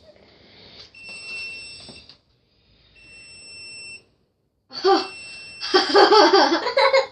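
Electronic alarm beeping: a steady high-pitched tone sounding three times, each beep about a second long, the last one longer. Loud voices break in over the last beep near the end.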